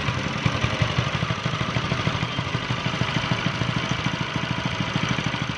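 Small single-cylinder compressor engine idling steadily after an electric start, with an even, rapid low chugging. Its retrofitted motorcycle starter is disengaged, since the one-way clutch lets the pulley turn while the starter chain stays still.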